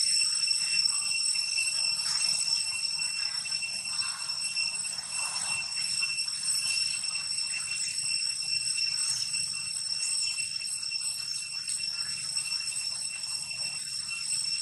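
Continuous high-pitched ringing drone of forest insects, over a faint low rumble.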